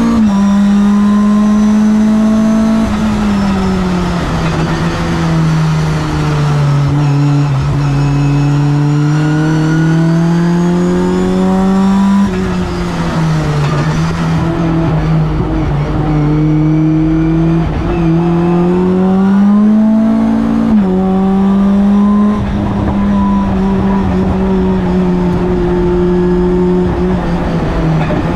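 Mitjet 2L race car's engine heard from inside the cockpit, loud and continuous. Its pitch climbs slowly under throttle and sags off into corners, with sudden steps in pitch at gear changes about 12 and 21 seconds in.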